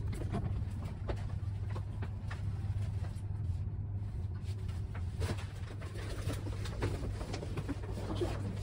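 Steady low hum inside a descending Fujitec passenger lift car, with a few faint knocks and rattles.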